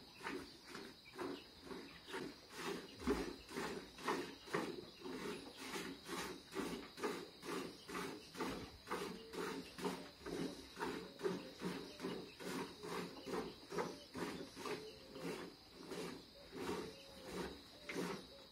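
Milk squirting into a pail as a cow is milked by hand, in a steady rhythm of about two squirts a second.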